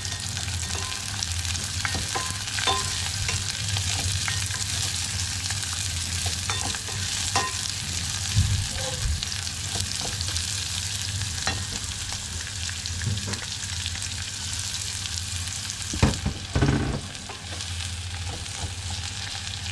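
Sliced onion, garlic and ginger sizzling in hot oil in a small pot, stirred with a ladle that scrapes and taps against the pot. Several louder knocks come near the end.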